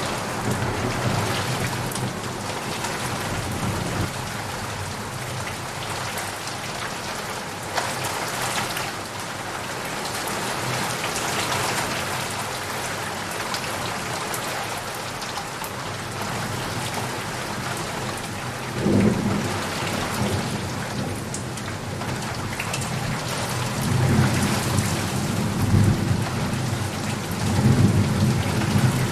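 Steady heavy rain with thunder rumbling, swelling at the start, about two-thirds of the way in, and again near the end.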